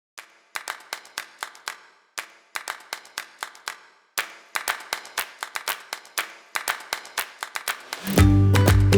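Background music opening with phrases of rhythmic hand claps, separated by short breaks. About eight seconds in, a full band with bass and guitar comes in loudly.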